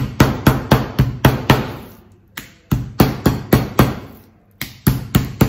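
Metal meat mallet pounding a raw chicken breast on a plastic cutting board, flattening and tenderising it for schnitzel. Quick, sharp strikes about four a second, in three runs broken by two short pauses.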